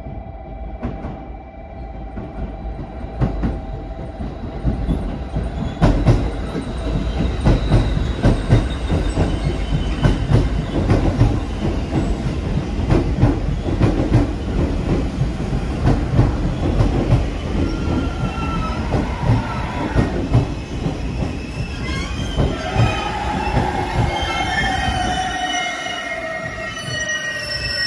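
Seven-car JR Kyushu electric multiple-unit train, including 817 series 3000 cars, running into a station and braking to a stop. The wheels clatter over rail joints as the cars pass, then squeal, and from about two-thirds of the way in a falling whine sounds as the train slows.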